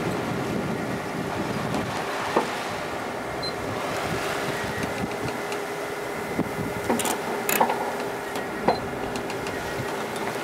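Water rushing and foaming along the hull of a yacht under way, over a steady mechanical hum. A few light clicks and knocks come in the second half.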